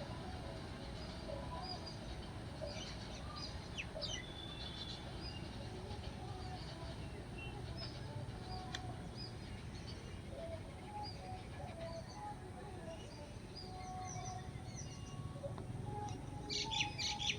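Small birds chirping with many short, scattered calls, which grow busier near the end, over a steady low background rumble.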